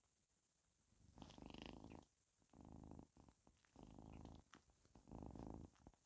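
Kitten purring close to the microphone, starting about a second in and coming in stretches broken by short pauses.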